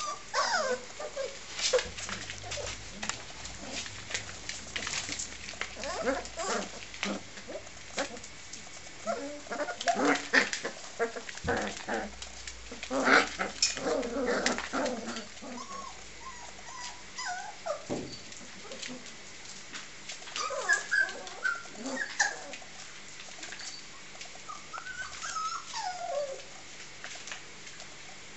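Five-week-old English springer spaniel puppies whining and yelping in short bent calls as they play, with scattered clicks and rustles of paws scrabbling on tiles and newspaper.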